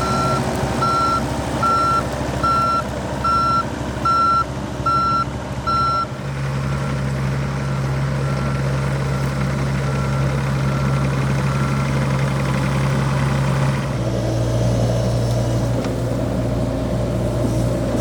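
John Deere 60G excavator's diesel engine running, with its warning alarm beeping in short even pips, about one and a half a second; the beeps turn much fainter about six seconds in and stop about halfway through, while the engine note shifts as the machine works.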